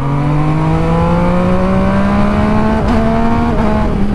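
MV Agusta Superveloce 800's three-cylinder engine pulling hard under acceleration, its note rising steadily in pitch.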